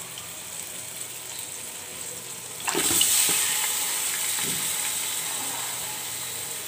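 Raw mutton pieces dropped into hot mustard oil and onions in an aluminium pot: the faint sizzle of frying onions jumps to a sudden loud sizzle about two and a half seconds in, then eases off gradually.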